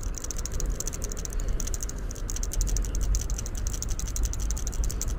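A fast, dense rattling of clicks, steady throughout, with a low rumble underneath.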